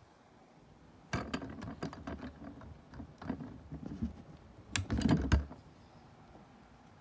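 A run of sharp clicks, knocks and rustles of things being handled and moved, starting about a second in, with a louder cluster of knocks around five seconds in.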